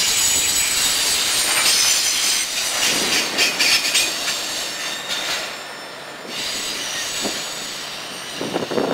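Double-stack intermodal train's well cars rolling past on a curve, steel wheels squealing against the rail with a few clacks. The squeal fades about five seconds in as the last cars go by.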